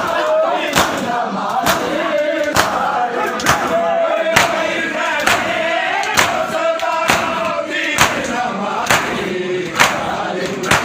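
A crowd of men chanting in unison while beating their chests in matam. Hands slap on bare chests together in a steady beat, about once a second.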